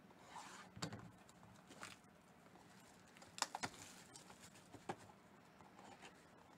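Faint handling of a small cardboard trading-card hobby box and the card in its plastic sleeve: a soft rustle near the start, then a few light clicks and taps, a quick cluster of them about three and a half seconds in.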